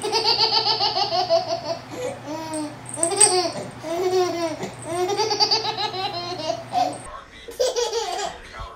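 High-pitched, hearty laughter in a steady string of bursts, about two a second, for roughly seven seconds, then a short break and a few more voice sounds near the end.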